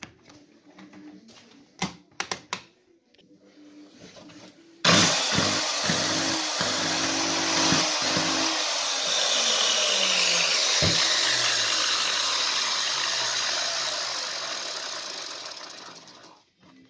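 Interskol PTs-16/2000T 2 kW electric chainsaw motor switched on about five seconds in after a few handling clicks. It runs loud and steady with sharp cracking pops through it, then winds down to a stop near the end. The pops are the sparking in the motor's brushes and commutator that the saw came in for, alongside smoking and loss of power.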